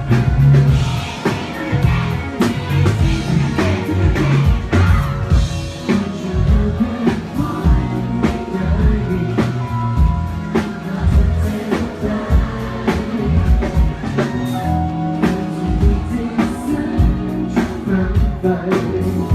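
A song with a singer in Thai over a band with drums and guitar, playing steadily.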